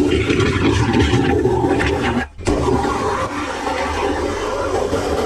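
Water rushing through a drain, over a steady low hum. The sound breaks off for a moment about two seconds in, then carries on.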